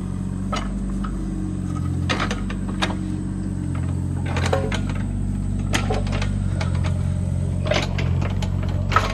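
Mini excavator digging: its engine runs steadily under load while the bucket and linkage give scattered clicks and clanks as they scrape into soil, with a sharper knock near the end.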